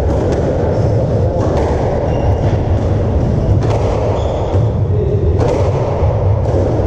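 Squash rally: sharp cracks of the ball off rackets and the walls, roughly one a second, with a couple of brief high shoe squeaks on the wooden court floor, all over a loud steady low rumble.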